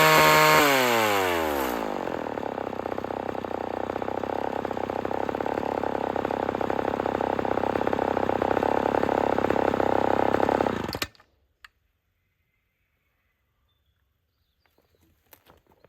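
Stock Homelite XL12 chainsaw engine falling from high revs to a steady idle. It idles for about nine seconds, then cuts out suddenly as it is switched off.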